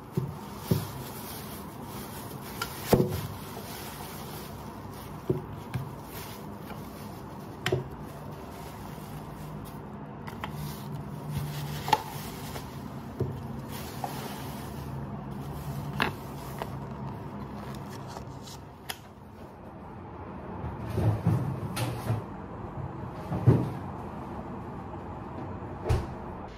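Groceries being unpacked on a wooden table: a plastic bag rustling and yogurt pots being set down in a string of sharp knocks, busiest about three-quarters of the way through.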